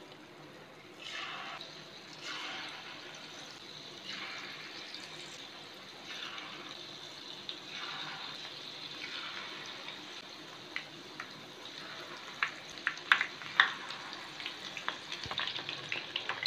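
Masala-coated paneer cubes sizzling in hot oil in a frying pan. The pieces go in one at a time, each setting off a fresh surge of sizzling roughly every second and a half, and sharp crackles and pops join in over the last few seconds.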